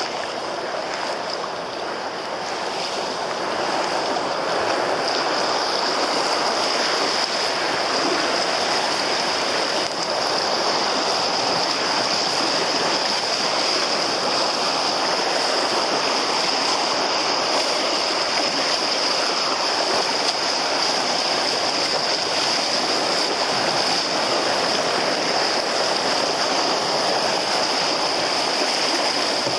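Fast-flowing river water rushing and splashing around an open canoe's hull as it sits on a playwave. The rush is steady and grows a little louder a few seconds in.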